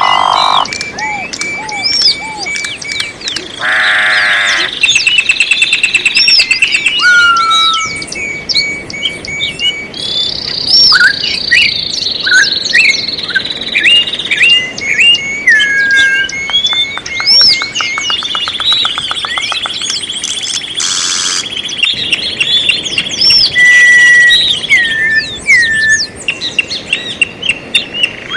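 Several songbirds singing at once in a dense chorus of overlapping chirps, whistled notes and rapid trills.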